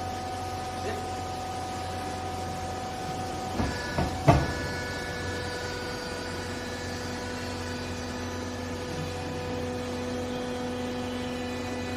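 Clothes-baling machine running with a steady motor hum made up of several fixed tones. A few sharp clanks come close together about four seconds in, after which the hum's tones shift.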